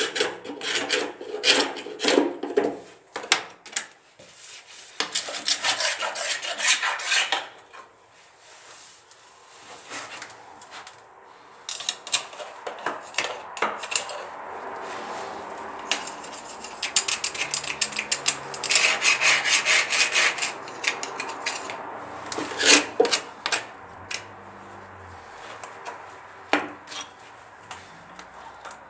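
Rapid scraping and rubbing strokes, like filing or sanding, in bursts that stop and start.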